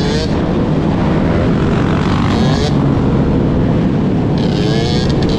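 Several dirt bike engines running at road speed, with the pitch rising as nearby bikes rev up on their back wheels, and high engine whine twice, about two and four and a half seconds in, over a steady rush of engine and wind noise on the onboard microphone.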